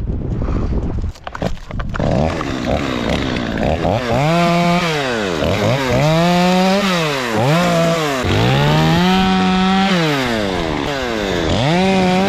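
Two-stroke Stihl chainsaw running, revved up and let back down about six times in a row as the throttle is squeezed and released, with wind buffeting the microphone in the first couple of seconds.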